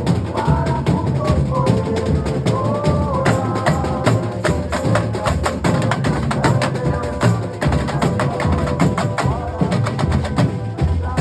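Carnival comparsa drum section (batería) playing a loud, dense rhythm, with deep drum hits under sharp, wood-block-like strikes.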